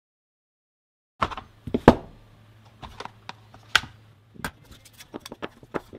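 Thin aluminium faceplate blanks being handled on a hard surface: irregular sharp clicks and clacks, starting about a second in, the loudest a little before two seconds in, over a faint low hum.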